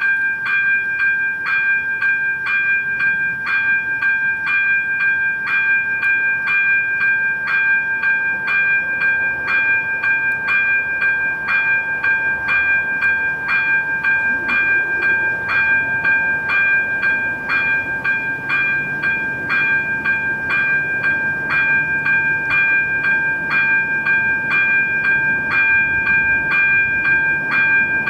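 Electronic level-crossing warning bell (AŽD ZV-02) ringing in an even rhythm, about two strikes a second: the crossing is activated for an approaching train.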